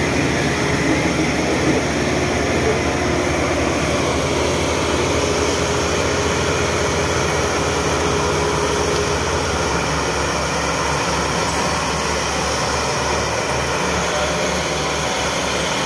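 Diesel farm tractor engines running hard, hauling a heavily loaded sugarcane trolley over rough ground. The engine sound is loud and continuous, with a low rumble that becomes an even, pulsing throb about halfway through.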